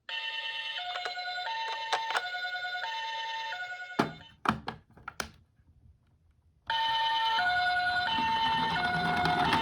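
Toy ambulance's electronic two-tone siren, alternating between a higher and a lower note about every half second in the Japanese ambulance 'pee-poh' pattern. It cuts off about four seconds in with a few sharp clicks and knocks, then starts again, louder, about seven seconds in.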